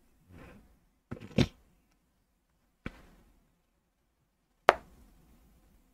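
A few short, isolated taps or clicks against a quiet room: two close together about a second in, a smaller one near the middle, and the sharpest one about three-quarters of the way through.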